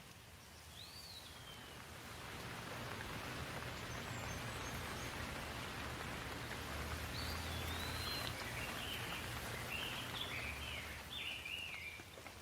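Steady rain hiss that swells in over the first couple of seconds and eases off near the end. A bird chirps once about a second in, then calls in a run of short chirps through the second half.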